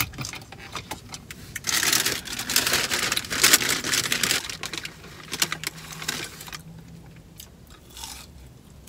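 Paper bag rustling and crinkling as a hand reaches into it, loudest from about two seconds in for a few seconds, then dying down to a few small rustles and clicks.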